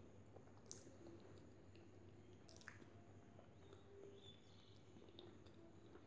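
Faint chewing and mouth sounds of someone eating, with a few small sharp clicks over a low steady hum.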